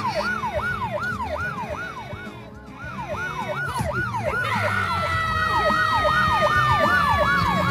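Police siren in a fast yelp, its pitch sweeping up and down about twice a second. About two-thirds of the way through, a second, steadier tone that slowly falls in pitch joins it.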